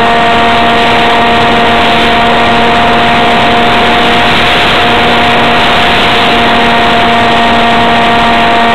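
Electric motor and propeller of a ParkZone F-27B Stryker RC flying wing in flight, heard from a camera taped to the plane: a steady whine at constant pitch over loud wind rush.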